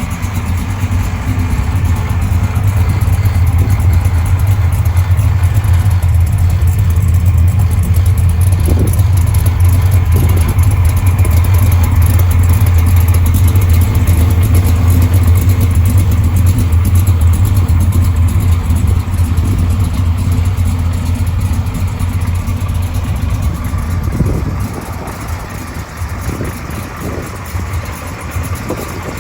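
Custom Chevrolet Impala SS engine running steadily with a deep, loud exhaust rumble, dropping noticeably quieter near the end.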